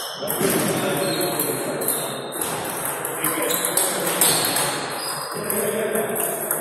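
Table tennis rally: the ball clicking off rubber paddles and bouncing on the table in quick succession, with more ball clicks from neighbouring tables and a murmur of voices in the hall.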